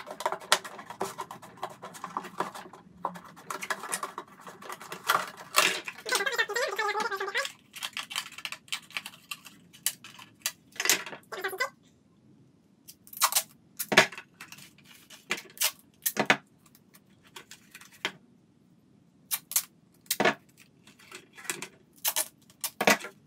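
Scissors cutting through a plastic bottle, a run of crunching snips for about the first seven seconds, followed by scattered clicks and knocks as the cut plastic pieces are handled. Near the end, gaffer tape is pulled off its roll.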